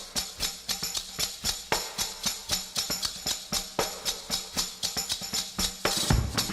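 Instrumental music without singing: a quick, steady light percussion beat in the manner of a tambourine, with drums and bass coming in near the end.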